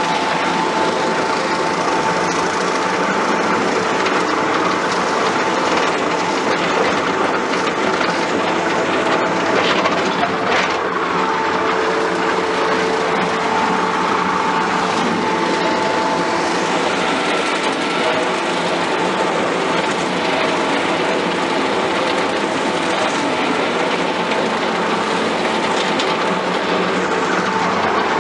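Skid steer running steadily while mowing with a hydraulic-motor-driven rotary mower deck: a constant machine din with a steady whine in it.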